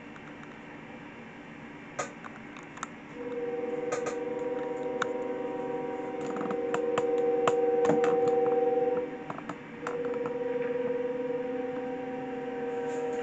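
Locomotive air horn sounding a steady multi-note chord. It starts a few seconds in, holds for about six seconds, breaks off briefly, then sounds again. Scattered sharp clicks are heard throughout.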